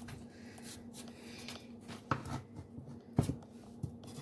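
Faint scraping of a utensil working at the flesh of a halved watermelon as it is cleaned out, with three sharp knocks, about two, three and nearly four seconds in.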